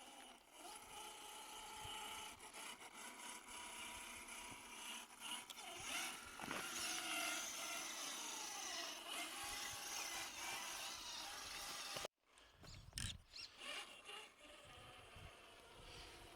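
Electric drive motor and gearbox of a large RC crawler truck whining as it drives, the pitch rising and falling with the throttle. The sound cuts off abruptly about twelve seconds in and gives way to quieter scuffing.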